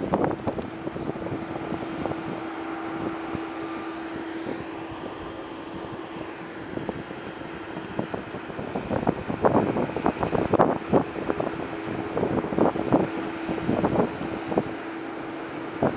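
Embraer E195 jet during pushback: a steady turbine hum with a faint high whine from its auxiliary power unit or engines spooling up. Irregular gusty buffeting comes in about halfway through.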